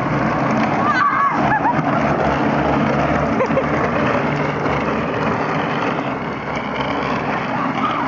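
Steady rolling noise of small hard wheels on asphalt, mixed with wind on the microphone. A voice briefly shouts or laughs about a second in.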